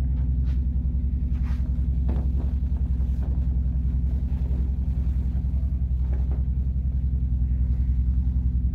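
A steady low hum with a fast buzzing flutter, unbroken throughout, with a few faint rustles of cloth as a shawl is shaken out and laid on the floor.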